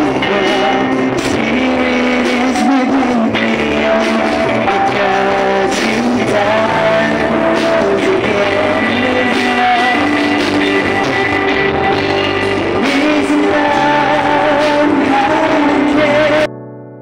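A worship song performed live by a band with guitars, keyboard and drums, with singing over it. The music cuts off abruptly near the end.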